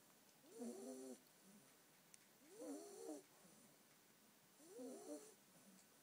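Ten-week-old Staffordshire bull terrier puppy snoring in her sleep: three soft snores about two seconds apart.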